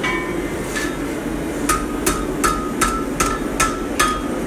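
Hand hammer striking hot steel, knocking in the end of a spiked finial: a run of about seven sharp, evenly paced blows, a little over two a second, starting a little before halfway, each with a short metallic ring. A steady rush runs underneath.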